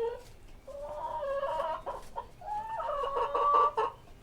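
Chickens calling: two drawn-out calls of about a second and a half each, the second one louder.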